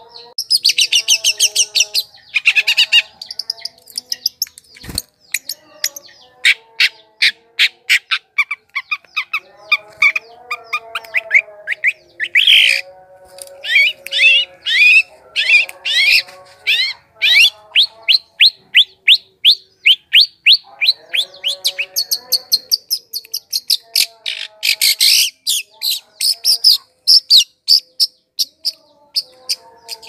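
Cendet (long-tailed shrike) song played as a bird-lure recording: loud, fast runs of sharp chirps and chattering notes, many sweeping quickly downward, broken by short pauses and lower warbled phrases.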